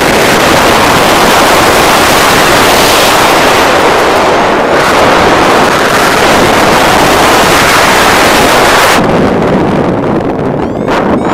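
Loud wind rushing over the microphone of a paraglider pilot's camera in flight, a steady roar of air that eases about nine seconds in to a lower rumble.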